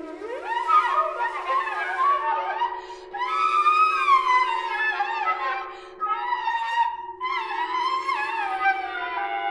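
Contemporary chamber music for flutes, violin, viola and accordion. A low chord is held steady underneath while high lines glide and bend above it in phrases, breaking off briefly about three and six seconds in.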